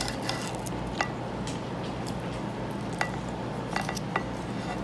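Steel knife and fork scraping and clinking against a ceramic plate while a steak is cut. A few short, sharp clinks with a brief ring: about a second in, at three seconds, and twice near the end.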